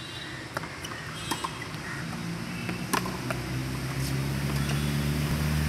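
Tennis ball being hit and bouncing on a hard court: several short sharp pops scattered through, the loudest about three seconds in. A low motor hum swells from about two seconds in.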